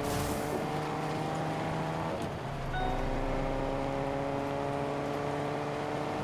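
Car engine sound from a video game: the engine note climbs steadily as the car accelerates, drops with a gear change about two seconds in, then climbs again.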